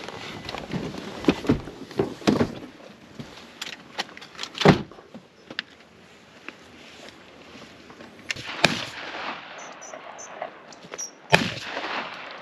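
Footsteps on a gravel track, broken by a few sharp bangs, the loudest about four and a half seconds in and again near the end, with a few faint high chirps around ten seconds in.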